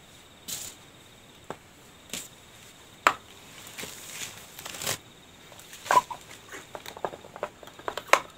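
Chess pieces being set back up on a board by hand: separate clicks and knocks as pieces are put down. There is a stretch of sliding and rattling from about three and a half to five seconds in, then a quick run of small clicks near the end.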